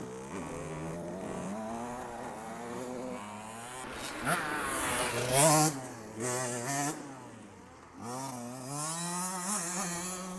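Small motocross bikes' engines revving up and down as the riders work the throttle through a rutted corner, the pitch rising and falling again and again. The loudest rev comes about five and a half seconds in, with a brief lull near eight seconds.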